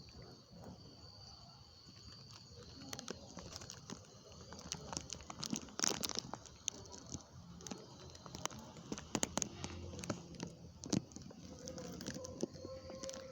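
Rustling and crinkling with many scattered sharp clicks, thickest about six seconds in, over a faint steady high-pitched tone.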